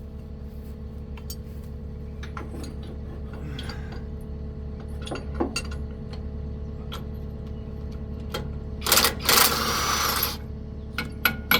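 Impact wrench rattling in one burst of about a second and a half near the end, undoing a 15/16 bolt on a Caterpillar HM418 mulcher head's skid shoe. Under it runs a steady low machine hum, with scattered metal clinks and taps.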